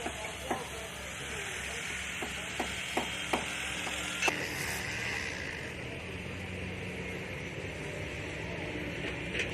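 Construction-site ambience: a steady hiss with sharp knocks, four in quick succession about two to three and a half seconds in and a louder one just after four seconds.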